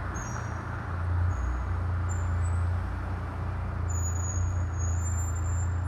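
Brakes of a 2016 Volvo S60 Polestar squealing: a few brief high-pitched squeals, then a longer, louder one from about four seconds in, over a steady low vehicle rumble.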